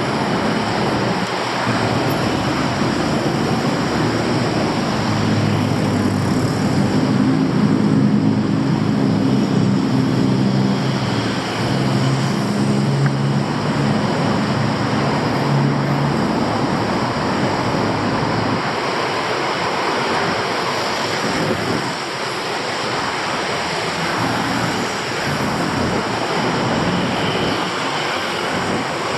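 Continuous street traffic noise. A vehicle engine runs close by from about five seconds in until about sixteen seconds, a steady low hum over the traffic.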